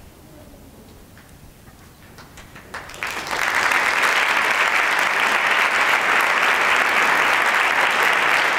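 Concert audience breaking into applause: a quiet hall for the first two seconds or so, a few scattered claps, then full, steady applause from about three seconds in.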